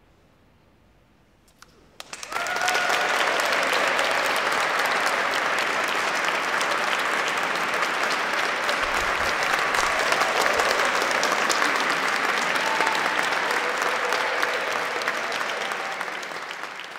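Audience applauding, starting suddenly after about two seconds of quiet, holding steady, then fading near the end.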